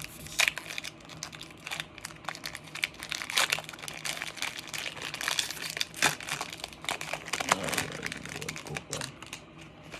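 Foil Pokémon booster pack wrapper crinkling as it is torn open and handled, a run of irregular crackles.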